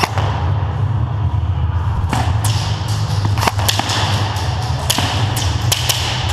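Airsoft guns firing single shots at irregular intervals, about eight sharp cracks from about two seconds in, over a steady low rumble.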